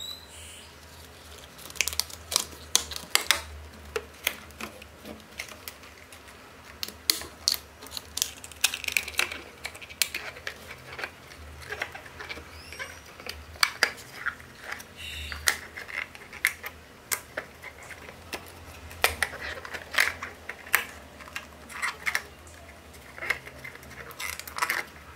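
A rubber balloon being stretched over the rim of a cut-down aluminium drink can by hand: irregular light clicks, taps and crinkles of the thin aluminium and rubber under the fingers.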